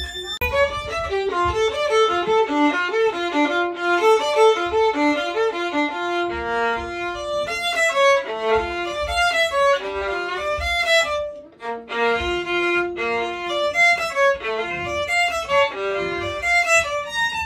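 Solo violin being practised: a quick succession of bowed notes, with a brief break about two thirds of the way through before the playing resumes.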